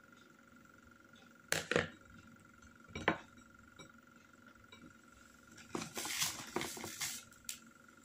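A knife and plate clinking and knocking as turon is hand-wrapped: two sharp knocks about a second and a half in and another about three seconds in, then a burst of clicks and crisp paper rustling near the end. A faint steady hum runs underneath.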